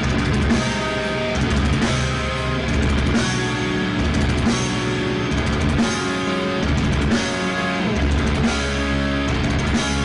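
Live rock band playing loud: distorted electric guitars and a drum kit, with heavy chords changing every second or so.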